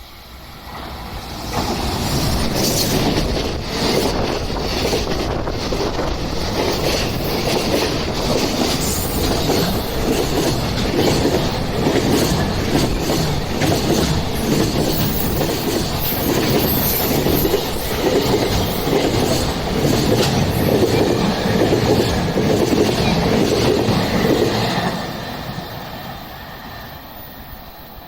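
A train passing at trackside, its wheels clattering in a steady, even rhythm over the rail for over twenty seconds. The sound builds quickly at the start and fades away near the end.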